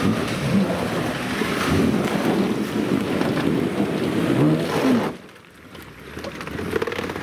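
Off-road 4x4's engine revving hard, its pitch rising and falling as the tyres churn through mud. About five seconds in the engine cuts back sharply, then builds again near the end.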